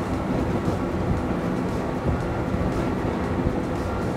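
Four Mercury Racing four-stroke outboard motors running together at full throttle, a steady dense engine drone mixed with the rush of spray and wind at top speed.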